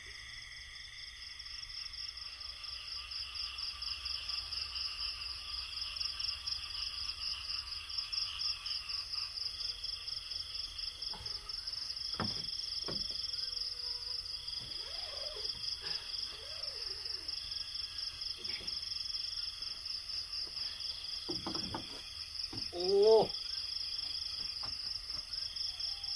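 Night insect chorus: a steady, high, fast-pulsing trill, with a second insect chirping in on-and-off phrases. A few faint calls sound in the middle, and about 23 s in a short, louder call rises in pitch.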